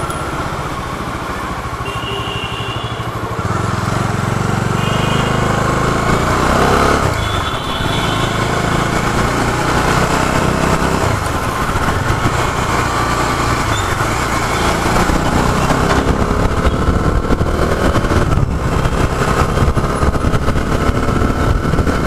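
Motorcycle engine running while riding through traffic, its note rising as the bike speeds up in the second half. A few short high beeps sound in the first several seconds.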